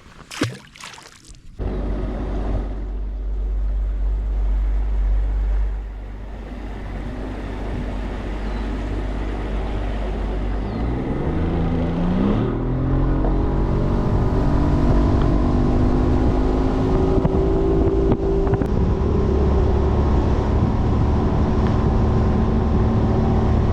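Boat engine running under way with a low rumble. About halfway through its pitch rises over a couple of seconds as it speeds up, then holds steady.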